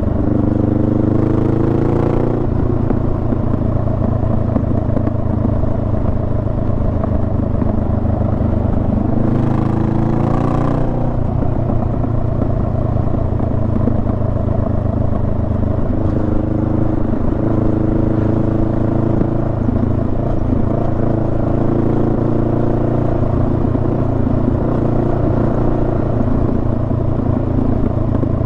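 Honda Rebel 500's parallel-twin engine running under way, its pitch climbing twice as the bike accelerates, in the first two seconds and again about ten seconds in, then holding steadier.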